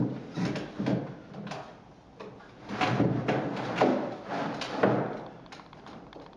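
Grand piano action being slid into its case: the wooden keyframe scraping along the key bed with a series of knocks, loudest about three to five seconds in.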